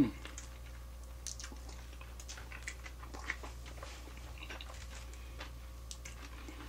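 A person chewing food close to the microphone, with small scattered clicks and mouth noises. A brief louder sound falling in pitch right at the start, over a faint steady low hum.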